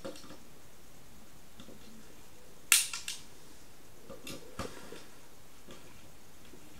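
Screw being driven into wood with a multi-tool screwdriver: one sharp knock a little under three seconds in, then a few light clicks.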